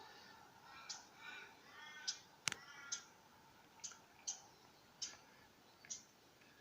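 Quiet scattered clicks and ticks, about eight short sharp ones at irregular intervals, the loudest about two and a half seconds in, with a few faint chirps early on.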